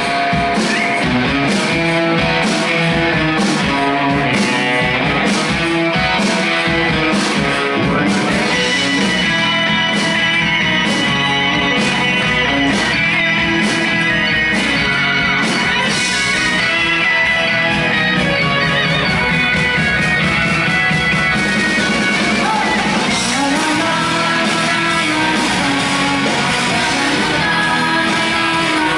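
Live rock band playing: electric guitars, bass and a drum kit with steady cymbal hits through the first half, the guitars holding long sustained notes.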